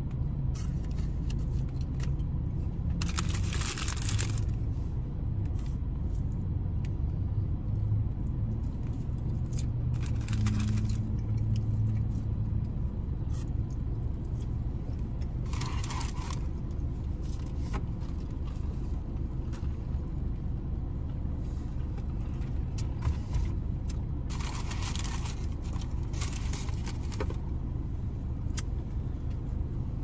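Steady low rumble of a car idling, heard from inside the cabin, with a few short bursts of crackly rustling as the paper-lined food baskets and the chicken sandwich are handled.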